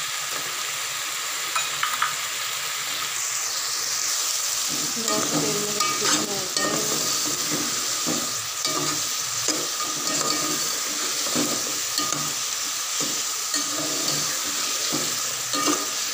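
Chicken pieces and onions frying in oil in a pot with a steady sizzle. A metal spoon stirs and scrapes through them in repeated strokes from about five seconds in.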